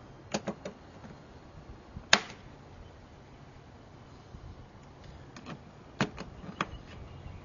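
Sharp plastic clicks and snaps as the rubber hood weatherstrip and its plastic trim clips are pressed back into place along the engine-bay cowl: a quick cluster of three, one loudest snap about two seconds in, and two more near the end.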